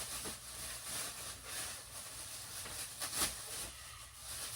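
Packaging rustling and chair parts being handled, with a few light knocks, the clearest a little after three seconds in.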